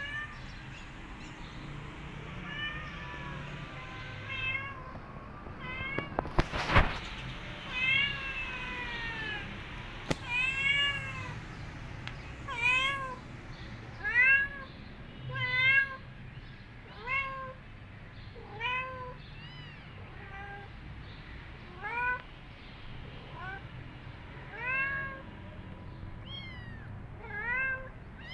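Small kittens meowing over and over, short high mews that rise and fall, roughly one a second. A sharp knock about six and a half seconds in.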